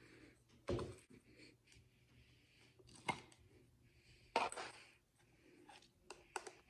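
A few faint clicks and knocks, about six spread over several seconds, with two or three close together near the end.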